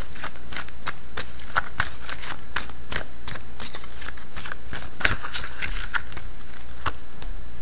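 A Marseille tarot deck being shuffled by hand: a steady run of quick, irregular card snaps and flicks, several a second.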